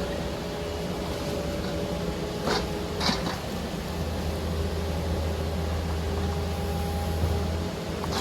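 Case 445 skid steer's diesel engine running steadily, with a deeper drone from about four seconds in until near the end and a couple of sharp clanks about two and a half and three seconds in.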